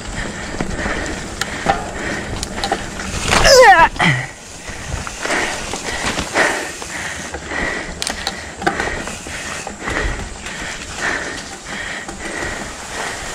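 Mountain bike rattling and crunching as it rides over a rough dirt trail covered in dry leaves. About three and a half seconds in comes a brief, loud sound that falls in pitch.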